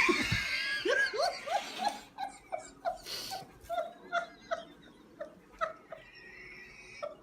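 A man laughing in a long run of short, rising 'ha' syllables, about three a second, that fade away toward the end. It follows a sudden loud burst of noise at the very start.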